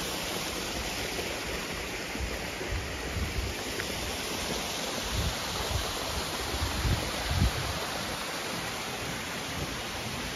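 Small rock waterfall splashing into a swimming pool, a steady even rush of falling water, with a few low thumps partway through.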